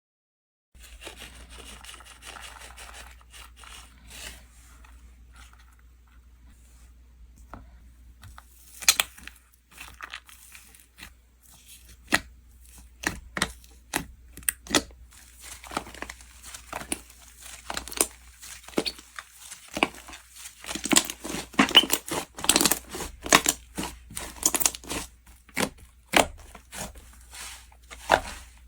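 Slime being squeezed and stretched by hand, with sticky crinkling and tearing. A soft crinkle for the first several seconds gives way to a run of sharp pops and clicks that grows denser and louder in the second half.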